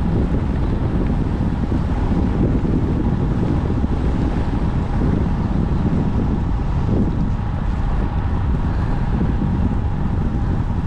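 Wind buffeting the microphone of a GoPro action camera on a moving road bike: a loud, steady rumble, with a faint steady hum above it.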